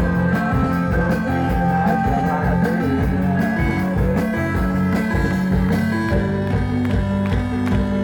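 Live rock band playing an instrumental passage: guitars, bass and drums with a steady beat, no vocals.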